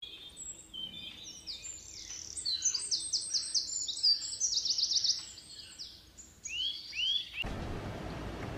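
Songbird singing: a busy run of high chirps and fast trills, ending with two arching calls. It cuts off abruptly about seven and a half seconds in, giving way to a steady rushing hiss of outdoor background noise.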